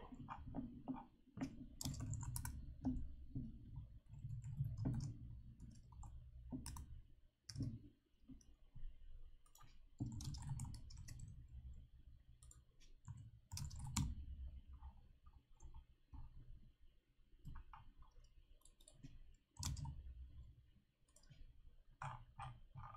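Computer keyboard typing: irregular runs of keystroke clicks broken by short pauses.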